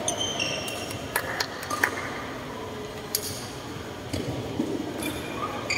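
Athletic shoes squeak briefly on a badminton court floor, followed by a few scattered sharp taps over the low background of an indoor sports hall between rallies.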